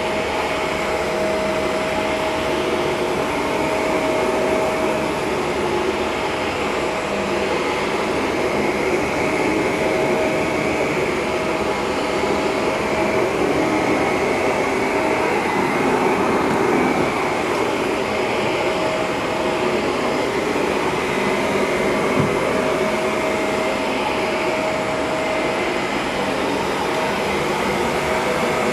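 Shark Rotator Professional upright bagless vacuum cleaner running steadily with a constant whine, its sound gently swelling and easing every few seconds as it is worked over carpet.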